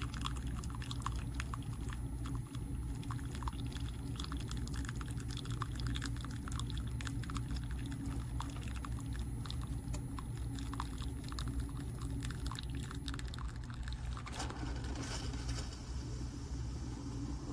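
Single-serve coffee maker brewing: a steady low hum with many small crackling drips and spatters of liquid. About fourteen seconds in, the crackle gives way to a steadier hiss.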